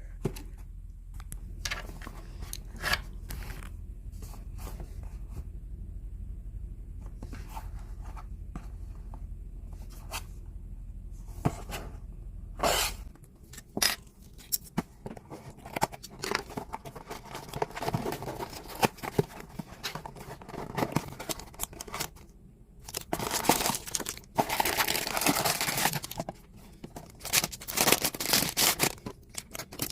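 Packaging being opened by hand: scattered handling clicks and taps at first, then paper and plastic tearing and crinkling, loudest in long stretches near the end. A low steady hum stops about halfway through.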